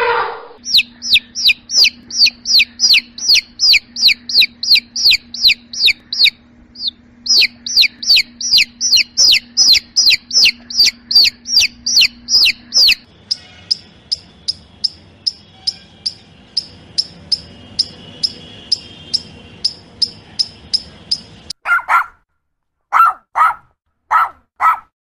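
Bird chirping: a long run of loud, quickly falling chirps about three a second, then faster, fainter, higher chirps from about halfway. Near the end come a few short, lower-pitched calls.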